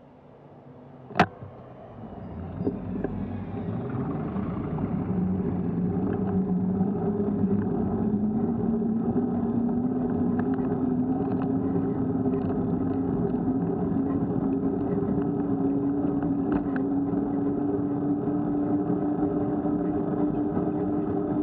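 Running noise of a road vehicle pulling away and gathering speed on a paved street: a steady hum that rises slowly in pitch, with a sharp click about a second in.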